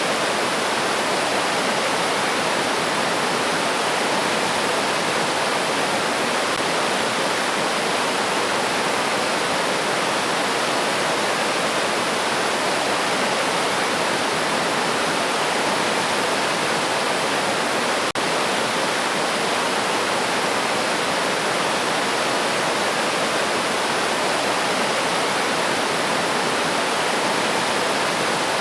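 River water rushing and splashing in a steady, unbroken wash, with one very brief dropout about eighteen seconds in.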